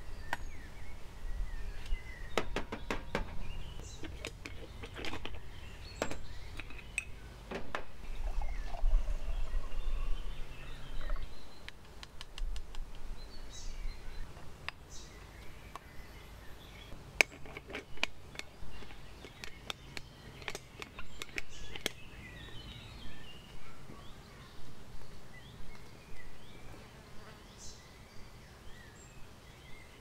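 Clicks, knocks and clinks of coffee gear being handled: a metal moka pot, an enamel mug and a jar set down and moved about, in short clusters. Birds chirp lightly in the background.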